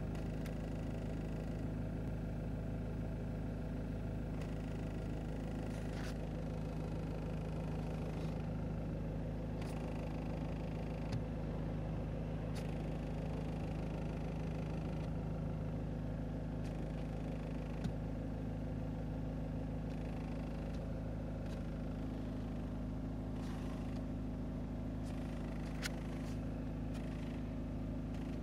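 Steady hum of a Ford C-Max heard from inside the car, with a few short sharp clicks spread through it, a noise the owner hears coming from the dashboard area.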